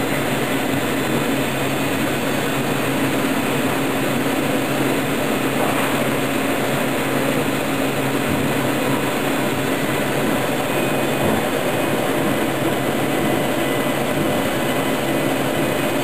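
KERN 150-watt laser metal cutter running while it cuts 18 gauge mild steel: a steady, even rush of noise with a low hum underneath.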